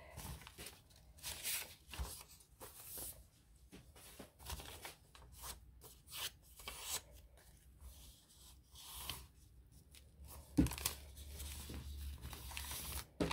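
Paper rustling and scraping as a cut paper template is handled and fitted inside a journal's spine to check its size, with one sharper knock near the end.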